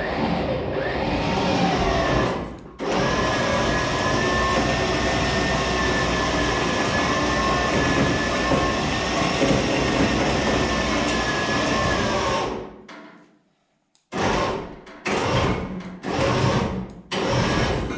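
Electric winch running under load with a steady whine, dragging a stripped car body across a concrete floor. It cuts out for a moment near the start and stops about twelve seconds in, then is run in four or five short bursts.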